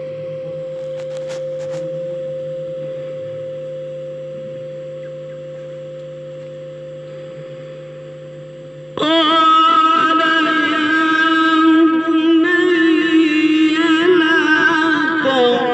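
Background music: a steady held drone that slowly fades, then about nine seconds in a louder singing voice comes in suddenly, its notes wavering with vibrato.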